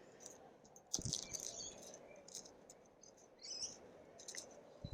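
Faint rustling and light crackling of a succulent plant and its pot being handled, with a small knock about a second in and another near the end.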